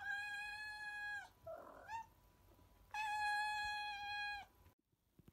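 A cat meowing twice in long, drawn-out, steady meows, with a short chirp-like sound between them.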